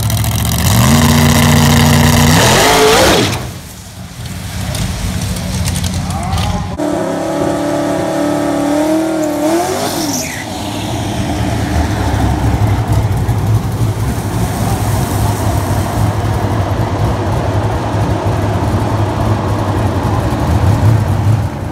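Drag-racing S-10 pickup engines in a string of edited clips. First one accelerates hard, its pitch climbing for about three seconds before it cuts off. About seven seconds in, an engine is held at high revs for some three seconds. After that an engine rumbles unevenly at low revs for the rest.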